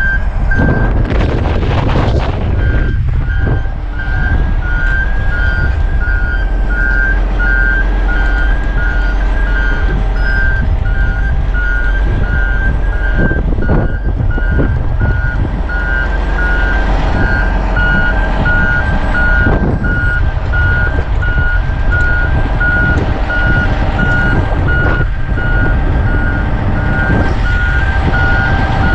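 Backup alarm beeping steadily over the loud, deep running of a Peterson 4710D grinder's diesel engine as the machine is driven onto a trailer.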